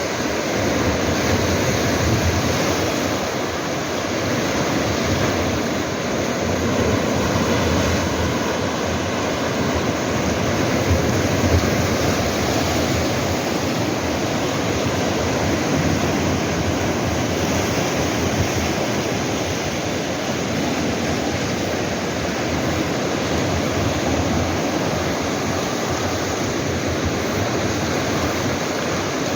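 Sea waves washing over shoreline rocks: a continuous rush of surf that swells and ebbs every few seconds.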